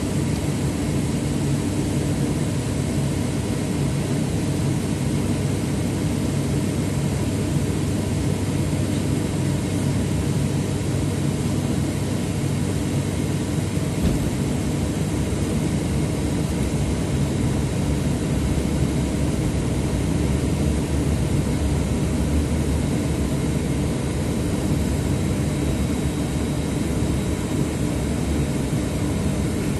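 Cabin drone of an ATR 72-600 turboprop airliner's engines and six-bladed propellers, heard beside the propeller on approach to landing. The drone is steady, with a faint high whine running through it.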